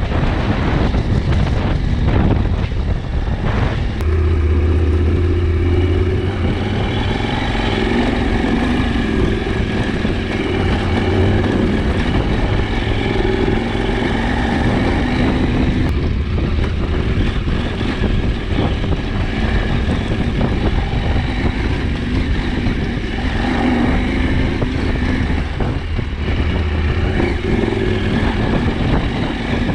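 KTM 790 Adventure's parallel-twin engine running under way, its note rising and falling as the revs change.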